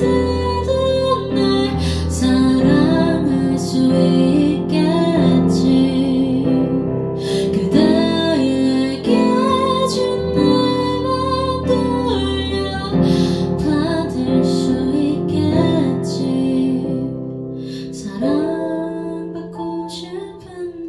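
A woman singing a song live, with vibrato on held notes, to her own accompaniment on a Kurzweil PC4 SE stage keyboard; the music softens in the last few seconds.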